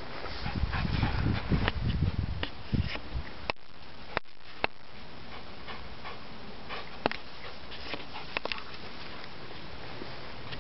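A dog panting, with low rumbling noise for the first three seconds and a few sharp clicks later on.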